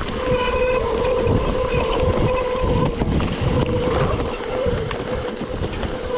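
Mountain bike riding a rough downhill trail, with wind rushing over the microphone and the tyres rumbling over the ground. A steady high whine from the bike runs through the first half and then fades out.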